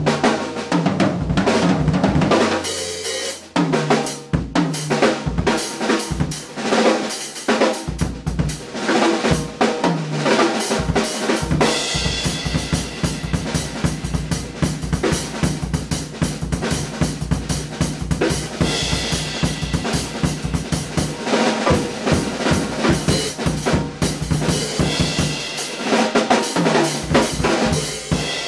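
Drum kit being played in a busy rhythm of closely spaced hits on bass drum, snare and cymbals.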